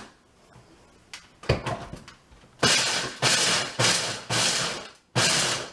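Ninja blender pulsing to grind nuts into a fine powder: a few knocks about a second in, then from about halfway through, repeated short grinding bursts, roughly two a second.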